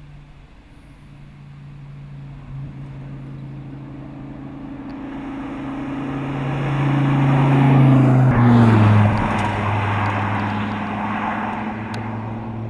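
Dodge Viper SRT's 8.4-litre V10 engine running as the car approaches and passes. Its steady note grows louder to a peak about eight seconds in, where the pitch drops, then eases off.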